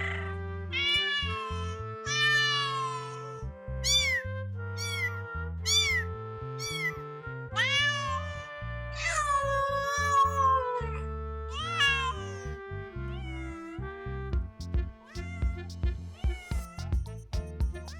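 Kittens meowing again and again, short arched mews with a quick run of them about four to seven seconds in and a longer one near the middle, over background music.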